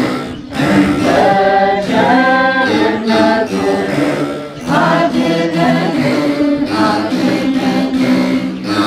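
A group of women singing an Ethiopian Orthodox hymn (mezmur) together in sustained phrases, accompanied by plucked begena, the large Ethiopian lyre.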